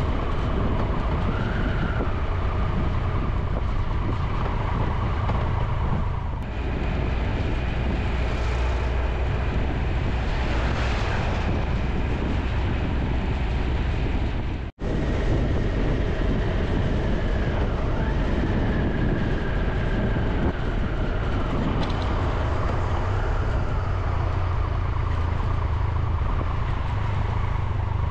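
Triumph Tiger 1200's three-cylinder engine running under way, with wind and road noise; the engine note rises and falls as the bike speeds up and slows. The sound cuts out for a moment about halfway through.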